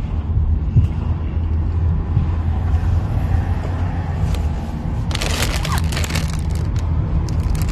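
Steady low rumble of a car interior, with a plastic snack bag crinkling loudly for about a second, about five seconds in, as it is lifted.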